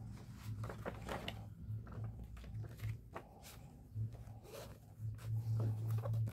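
Paper pages of an art book being flipped, then the book closed, turned over and picked up off a cloth: quick paper rustles and soft handling knocks, with a low hum that comes and goes and is loudest near the end.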